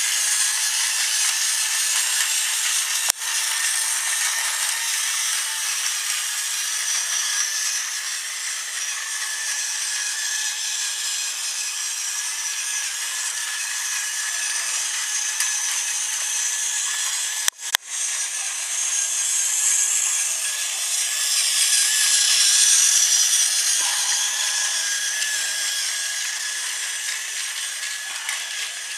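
Tomy Mighty Mac toy train running on its track: the steady whirring, grinding buzz of its small motor and gears, swelling louder a little past the middle as it comes closer. The sound cuts out for an instant twice.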